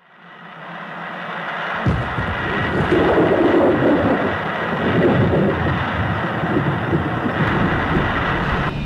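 A low, rumbling roar fades in from silence over the first couple of seconds and deepens about two seconds in, then holds steady and loud.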